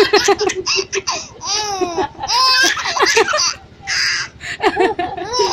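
A baby laughing hard in repeated bursts, with breathy gasps between the laughs.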